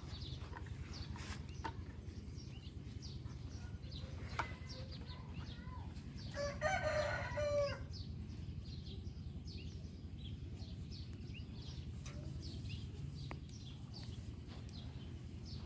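A rooster crows once, about six seconds in, a single call lasting about a second and a half. Small birds chirp here and there over a steady low rumble.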